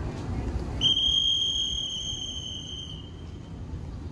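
A steady, high-pitched whistle-like tone starts about a second in, holds for around two seconds and fades, over a low background rumble.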